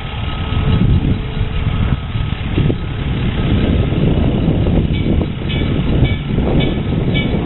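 Self-propelled railway motor car running along the track toward the listener, with heavy wind rumble on the microphone. From about five seconds in, a bell rings steadily at about two strokes a second.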